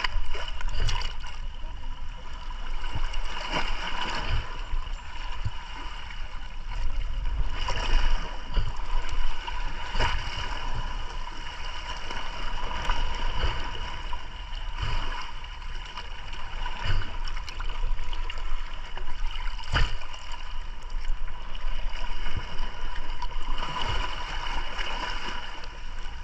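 Sea water sloshing and gurgling around a camera held at the water surface, with frequent small splashes, over a steady high hum.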